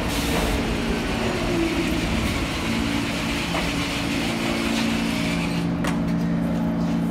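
New York City Subway A train pulling into the station and slowing to a stop. A falling whine in the first two seconds gives way to a steady low hum of several tones as it stands, with a couple of light clicks near the end.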